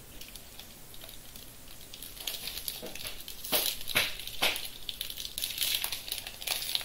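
Plastic-foil wrapper of a Bowman baseball card pack crinkling and crackling as it is handled and worked open, starting about two seconds in, with a few sharp crackles near the middle.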